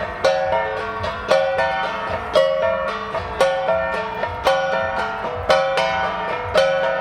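Cordillera flat gongs (gangsa) played as an ensemble in a repeating rhythm: a strong ringing stroke about once a second with lighter strokes between, each note dying away quickly.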